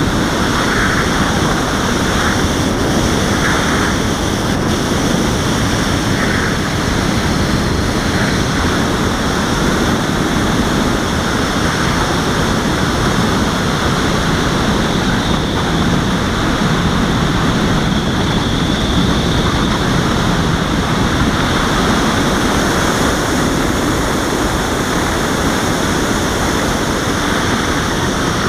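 Steady rush of air over a Robbe Arcus Sport RC glider in flight, heard on its onboard FPV camera microphone as loud, even wind noise with a faint high steady whine above it.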